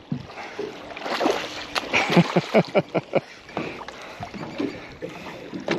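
A hooked barramundi thrashing at the surface beside the boat: a quick run of about eight splashes between one and three seconds in.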